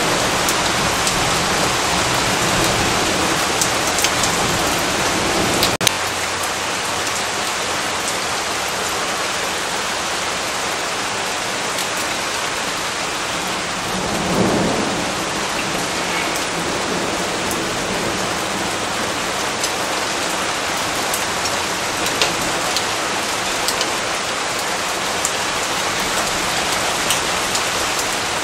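Steady heavy rain, a dense even hiss, with low thunder rumbling in the first few seconds and a distant roll of thunder swelling about halfway through. Scattered sharper drop ticks over the top.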